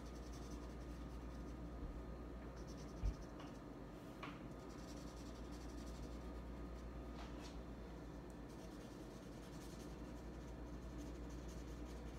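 Marker tip scratching and rubbing on paper as butterfly wings are coloured in with back-and-forth strokes, faint over a steady low hum. A brief low thump about three seconds in.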